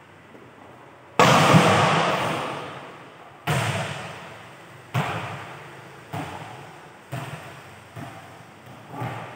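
A volleyball smacks hard about a second in, echoing for a couple of seconds through a large metal-roofed hall, then bounces six more times, each bounce fainter.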